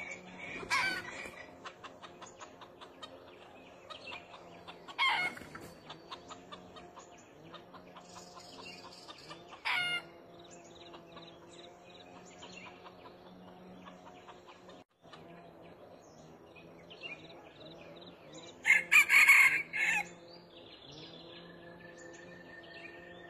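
Red junglefowl calling: a few short sharp calls, then about three-quarters of the way in a loud, broken crow lasting over a second.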